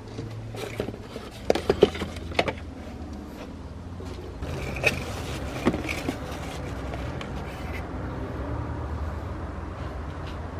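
A few sharp clicks and knocks, about two seconds in, as small car parts and their packaging are handled. A steady low rumble runs underneath.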